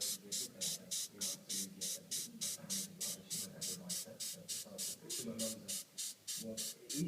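Australian Christmas beetle (Anoplognathus) making a rhythmic rasping hiss, about five quick pulses a second, with voices murmuring underneath.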